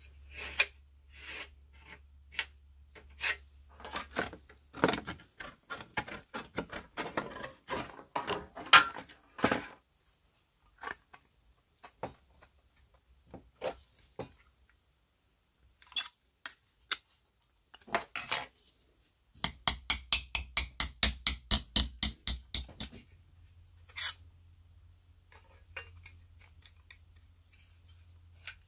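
Workshop handling sounds: a fan impeller being moved and set down on a galvanized steel sheet with light metallic clinks and taps, then paper and masking tape being handled. A bit past the middle comes a fast, even run of scraping strokes, about six a second, lasting some three seconds.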